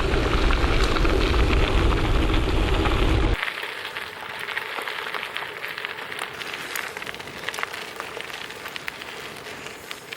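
Bicycle tyres rolling over gravel with a fine crackling crunch, under heavy wind rumble on the microphone. The rumble cuts out suddenly about three seconds in, leaving the crunch of gravel under the tyres.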